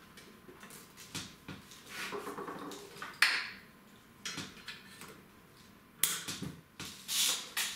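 Plastic cable ties and power-supply cables being handled and pulled tight inside a metal PC case: rustling and small clicks, a sharp loud click about three seconds in, and another run of clicks near the end.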